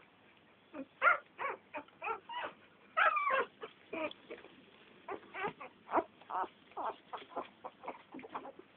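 A litter of American Staffordshire Terrier puppies whimpering and squeaking in many short, high calls, two or three a second, with one longer call about three seconds in.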